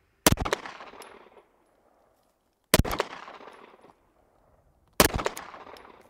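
Three single gunshots from a Flux Raider-X (a SIG P320 sub-gun conversion), fired at a slow, even pace about two and a quarter seconds apart. Each shot trails off over about a second.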